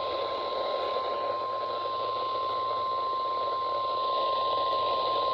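NOAA Weather Radio 1050 Hz warning alarm tone playing through a weather radio receiver: one long, steady, unbroken beep over a hiss of radio static. It is the alarm tone of the station's weekly test.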